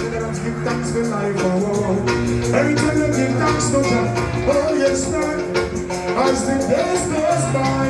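A song playing: a voice singing a melody over a steady beat with bass and percussion.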